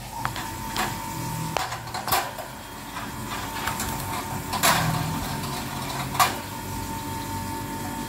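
Light knocks and clicks from a wire bird cage and its plastic feed cup being handled, over a steady hum with a faint high whine.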